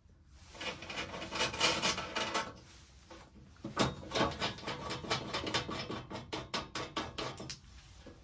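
Metal end cover of a bench lathe being worked loose by hand: the panel scrapes and rattles against the machine body, with many small sharp clicks.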